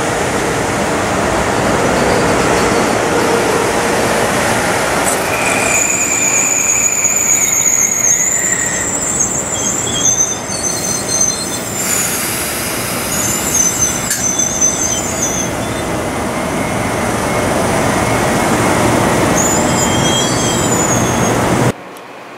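Kawasaki M8 electric multiple-unit train rolling slowly past, with a steady rumble of the cars on the rails and high-pitched wheel squeals that come and go in the middle and again near the end. The sound drops abruptly quieter just before the end.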